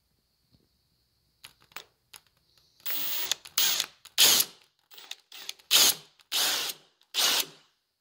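Cordless drill boring the bolt hole into the edge of a wooden door through a plastic drilling jig, run in about seven short spurts with brief pauses between them, after a few faint clicks.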